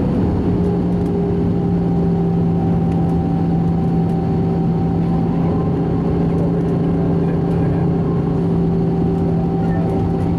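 Airbus A320 cabin noise on final approach, heard from a window seat over the wing: a steady rumble of the engines and rushing air, with a constant low hum and a couple of fainter, higher steady tones.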